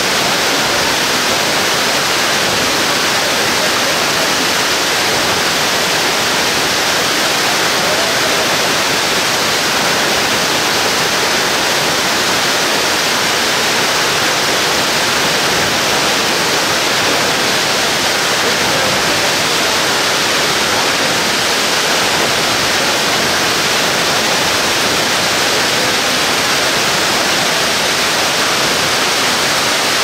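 A waterfall's loud, steady rush of falling water, even and unbroken.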